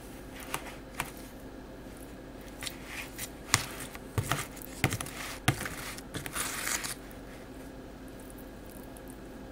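Metal spoon tapping and scraping against a thin aluminium foil pie pan while spreading melted chocolate: a run of sharp clicks in the middle, then a short crinkly scrape of the foil about six seconds in.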